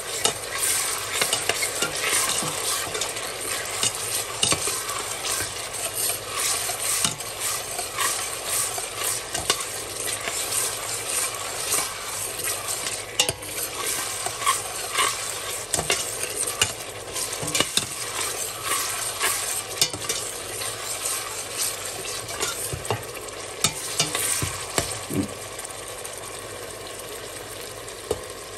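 A metal spoon stirs sizzling vegetables in a stainless steel pot, with frequent scrapes and clinks of the spoon against the pot over a steady frying sizzle. Near the end the scraping thins out and the sizzle goes on more quietly.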